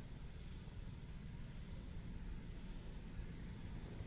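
Steady high-pitched chorus of forest insects, with a low rumble underneath.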